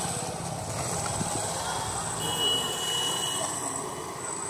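Motor scooter engine idling, its low even pulsing fading out about a second in, over street background noise. A thin high tone sounds briefly near the middle.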